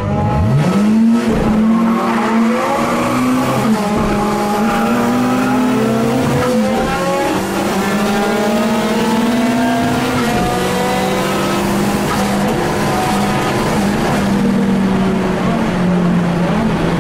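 Fiat Uno Turbo's turbocharged four-cylinder engine accelerating hard in a drag run. It climbs in pitch through each gear, with the revs dropping back at about four gear changes.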